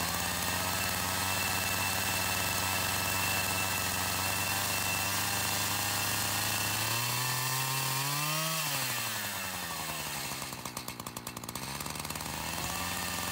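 Shindaiwa 59cc two-stroke chainsaw running steadily with the bar held clear of the wood. About seven seconds in the engine pitch rises for a second and a half, then falls back to a steady run.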